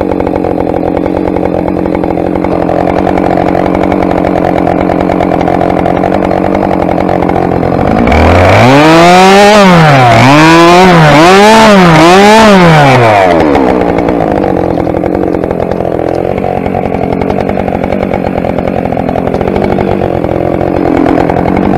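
Husqvarna 572 XPG chainsaw idling, then revved up and down four times in quick succession over about five seconds as the chain cuts into a tree trunk, then dropping back to a steady idle.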